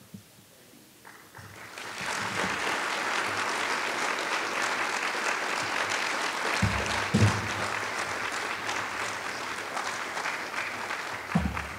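Audience applauding, starting about a second and a half in and holding steady, thinning slightly near the end, with a few low thumps mixed in.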